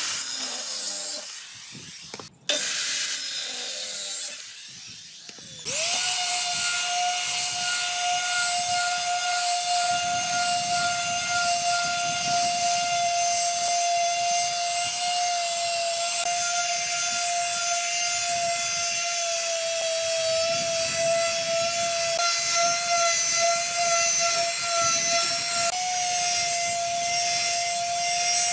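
A Maktec circular saw cuts wood in two short loud bursts. About six seconds in, an electric palm sander starts and runs steadily against the wooden tabletop with a constant whine, its pitch sagging slightly for a while as it is pressed down, then recovering.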